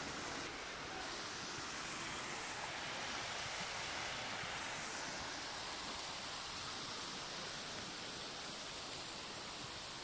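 Shallow stream running over stones: a steady rushing hiss.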